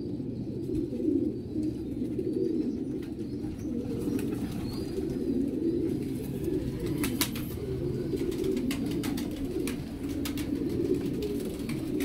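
Domestic pigeons cooing, a continuous low warbling, with a few sharp clicks about seven seconds in and again near the end.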